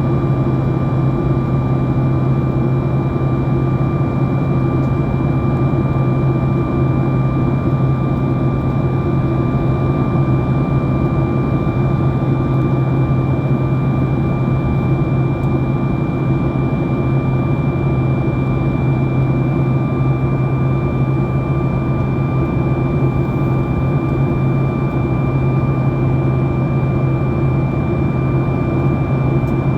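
Steady cabin noise inside a Boeing 737 MAX 8 during the climb: its CFM LEAP-1B engines and the airflow make a constant rush with a low hum and a thin steady whine, unchanging throughout.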